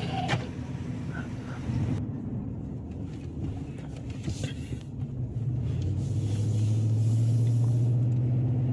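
Pickup truck's engine and road noise heard from inside the cab while driving: a steady low drone that grows louder and more even about six seconds in.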